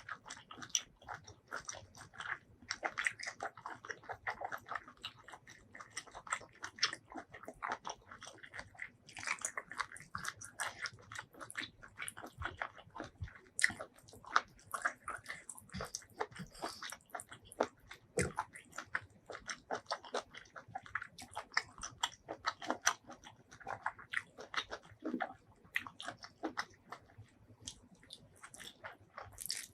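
Close-miked eating: a person biting and chewing, a dense, continuous run of wet clicks, smacks and small crunches.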